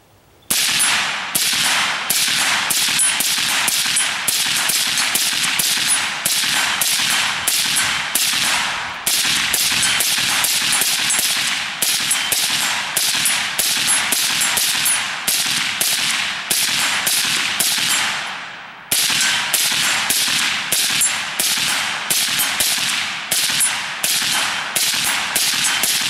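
Suppressed AR-15 rifle with a SilencerCo Saker suppressor firing .223 remanufactured rounds in rapid, steady fire of about two shots a second, with one brief pause about two-thirds of the way through. The shots keep coming from a 50-round drum without a stoppage, the rifle cycling the ammunition reliably.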